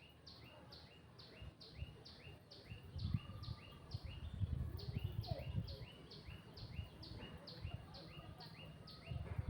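A bird calling a steady run of short chirps, each falling in pitch, about four a second, alternating between a higher and a lower note. Low rumbling noise runs underneath, strongest in the middle.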